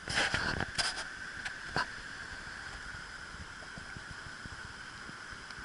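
Steady rush of a swollen, typhoon-flooded river, with a few sharp knocks in the first two seconds.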